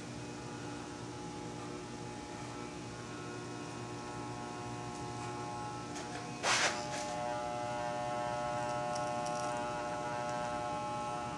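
Electric hair clippers, guard off, running with a steady buzz while shaving a man's head. About six and a half seconds in there is a brief, loud scratchy noise, and after it the buzz is a little louder.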